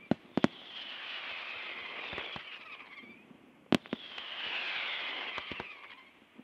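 Aerial fireworks: sharp bangs of bursting shells, two near the start, the loudest a little past halfway and a few lighter ones near the end. Between the bangs a steady hiss swells and fades twice.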